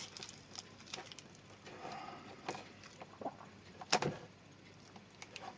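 Faint scattered clicks and taps of hands handling a cable and a utility knife, with one louder knock about four seconds in.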